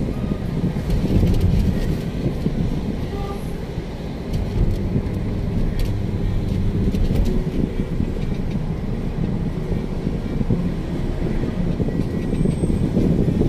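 Steady low rumble of a car's road and engine noise, heard from inside the moving car.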